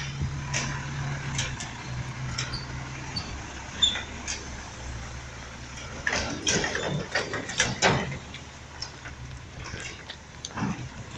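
Rear-loader garbage truck's diesel engine running at a distance, a steady low hum, with a series of sharp knocks and clatter a little past the middle.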